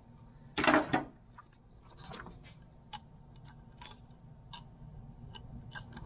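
Metal hand tools being handled: a short clatter about a second in, then scattered light metallic clicks and clinks, about two a second.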